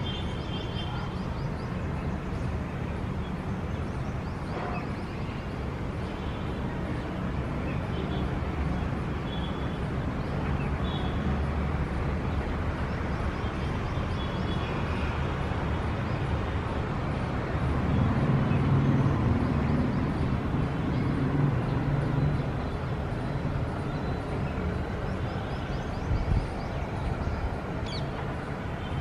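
City street ambience: a steady rumble of road traffic, swelling for a few seconds past the middle as a heavier vehicle goes by, with a short low thump near the end.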